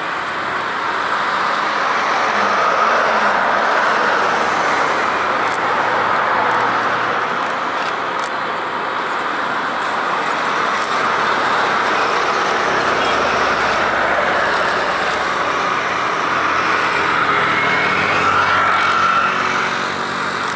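Airbus A350-1000's Rolls-Royce Trent XWB turbofans running at taxi thrust: a steady jet rush, with a faint whine near the end.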